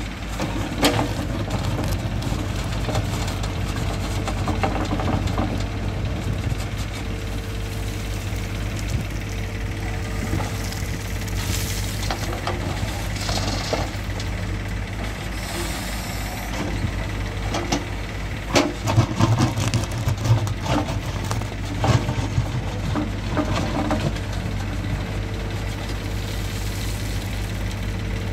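Backhoe loader and tractor diesel engines running steadily, with the backhoe's bucket digging into hard, stony soil and rocks clattering as the load is dumped into the steel trolley. The loudest knocks and clatters come about two-thirds of the way through.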